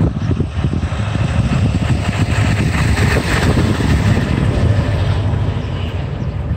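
Snowmobile engine running nearby, a loud rough rumble that swells a little louder a couple of seconds in.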